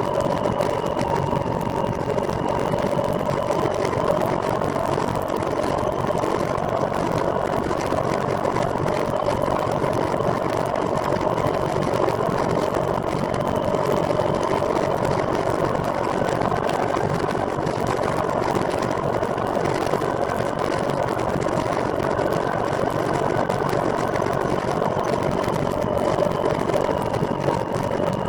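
Steady running noise of a moving vehicle, with a constant whine and no change in speed or pitch.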